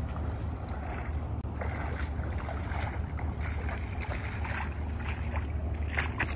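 Shallow water sloshing and splashing in short bursts as a man wades and handles a wet cast net, over a steady low rumble. The splashes are strongest a little before the end.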